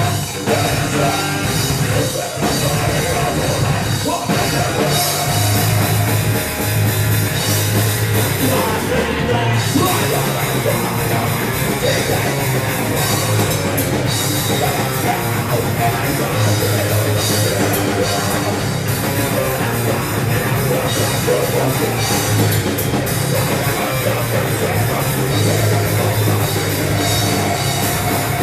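A rock band playing live: distorted guitars, bass and a pounding drum kit, loud and without let-up. No singing stands out.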